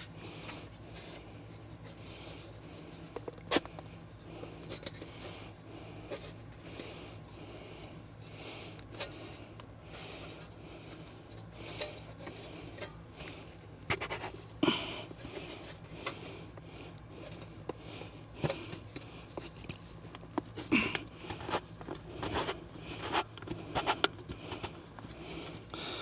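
Adjustable sheet-metal duct elbow being rotated and handled: faint scattered clicks and short scrapes of thin metal, with a few louder clicks near the middle and toward the end, over a low steady hum.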